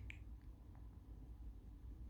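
Near silence: low room hum with a few faint, short clicks in the first second.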